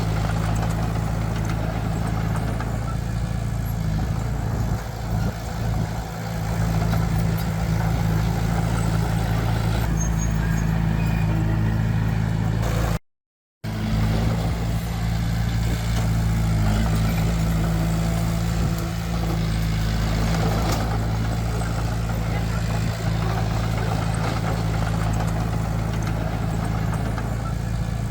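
Heavy diesel engine of earthmoving machinery running steadily under load, a deep even drone. It cuts out for about half a second just after the middle, then carries on.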